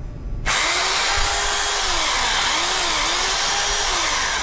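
Oshima K3CN-26 800 W rotary hammer drill switched on about half a second in and running steadily unloaded in plain drill mode, the bit spinning in the air.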